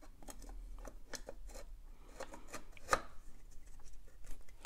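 Small plastic clicks and scraping as hands work the green plastic parts of an in-wall plumbing box into place, with one sharper click about three seconds in.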